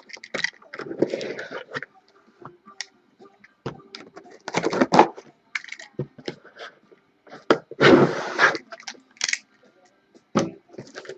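A sealed cardboard case of trading-card boxes being opened: packing tape ripping and cardboard scraping and knocking in short bursts, the two loudest rips about four and a half and eight seconds in.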